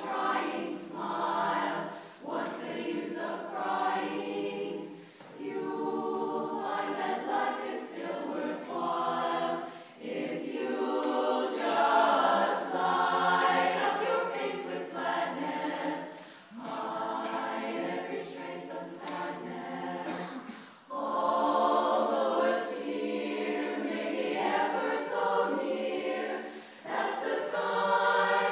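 Women's chorus singing a cappella in harmony, in sustained phrases broken by brief breaths every few seconds.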